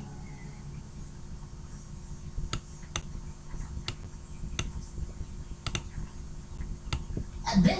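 Irregular single clicks at a computer, about a dozen of them spaced unevenly, over a faint steady low hum.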